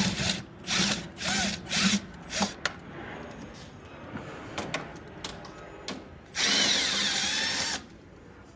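A handheld power tool runs in several short bursts, with clicks in between, then one longer run of about a second and a half near the end, backing out the fasteners that hold the radiator fan shroud.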